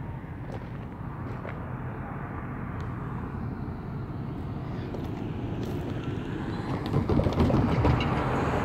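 Steady rumble of road-vehicle noise that slowly grows louder, with a brief voice-like sound near the end.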